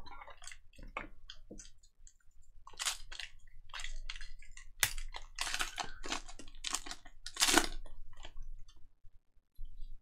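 Foil wrapper of a trading-card pack crinkling and tearing as it is ripped open by hand: a run of irregular crackly rustles, loudest and densest in the middle stretch.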